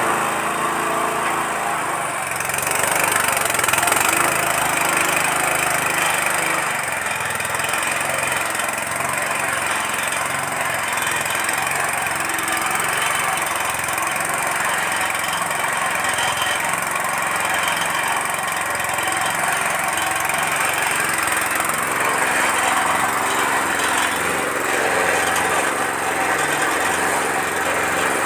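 Small petrol engine running steadily under load, driving a feed mixer through a pulley and worm gearbox while the ribbon agitator churns a full charge of about 160 kg of feed; the mixer was filled before the engine was started, as a strength test.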